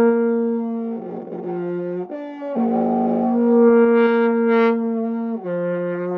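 Trombone holding a long B-flat whose tone quality is deliberately unsteady, a demonstration of an inconsistent long tone. The note goes rough and airy in places and briefly breaks about two seconds in.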